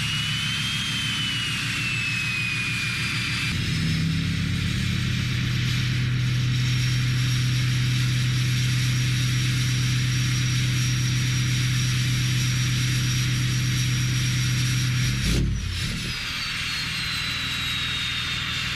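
Straight-piped, tuned and deleted 6.7 Cummins inline-six turbodiesel idling on a cold start. The idle steps up and gets louder about three and a half seconds in, then eases back near the end. A high whistle slides up and down above the steady engine note.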